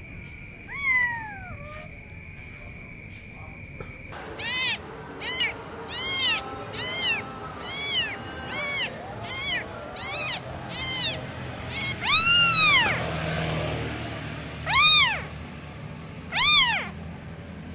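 Young kitten meowing over and over, high-pitched rise-and-fall cries coming about one a second, with one longer cry past the middle. It is a kitten calling for its mother.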